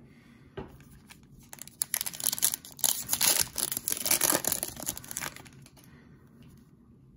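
Foil wrapper of a Panini Prizm football card pack being torn open and crinkled. The dense crinkling and tearing starts about two seconds in and lasts about three and a half seconds.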